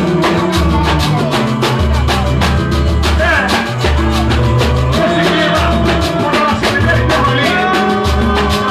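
Band music with a steady percussion beat and a strong bass line, with a voice singing the melody from about three seconds in.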